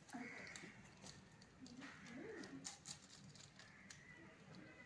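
Quiet handling sounds: scattered faint clicks and taps of small plastic toy pieces being placed on a kinetic-sand cake over newspaper, with a few soft, low murmurs.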